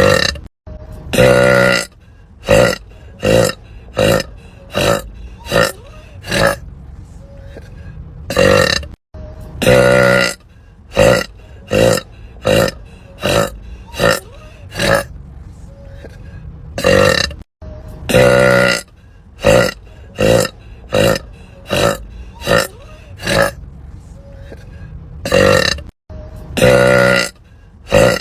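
A woman burping again and again: one long, drawn-out burp followed by a run of short burps about every three-quarters of a second. The same sequence repeats about every eight and a half seconds, with a brief cut to silence before each repeat.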